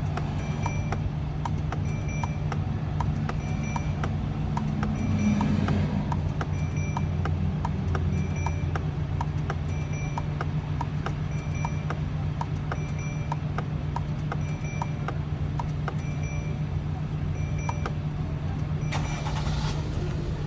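Inside a Mercedes Sprinter van: a warning chime beeps about once a second over a steady low hum, with a light ticking about twice a second. A short rush of noise comes near the end.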